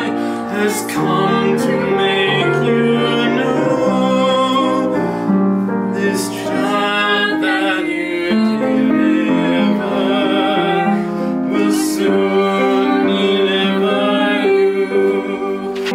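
Grand piano played while a man and a woman sing along.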